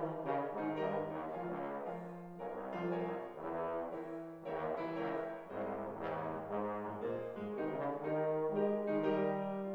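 Bass trombone playing a melodic line of separate notes with piano accompaniment, settling on a longer held note near the end.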